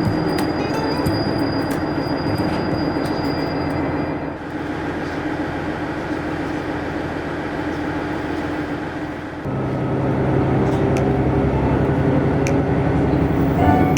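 Cabin noise of a two-car diesel railcar on the move: a steady rumble of wheels on rail with scattered clicks, and a thin high wheel squeal until about four seconds in. About nine and a half seconds in, a low steady hum sets in and the running noise grows louder.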